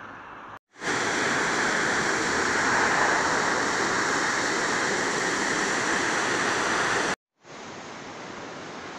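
Swollen, muddy floodwater rushing over rocks and through rapids: a loud, steady roar of white water that starts abruptly about a second in and cuts off abruptly near the end, leaving a quieter steady rush.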